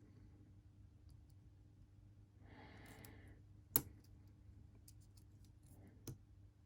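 Lock picking in a Lockwood padlock: faint ticks of a pick working the pins, one sharp click from the lock a little past halfway, and a smaller click near the end.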